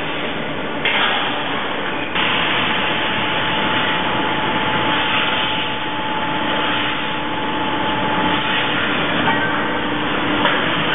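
GEA WestfaliaSurge AutoRotor rotary milking parlour running: a steady hissing rush of milking machinery with a faint steady hum.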